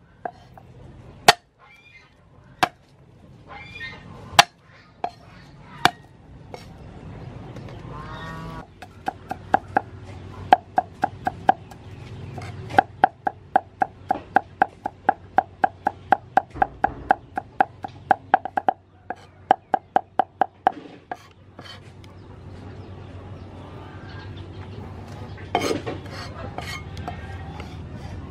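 Steel cleaver chopping garlic on a wooden chopping board. A few single knocks come first, then fast, even chopping at about three strikes a second with a slight metallic ring, which stops about 21 seconds in. One louder knock follows near the end, as the minced garlic is gathered with the blade.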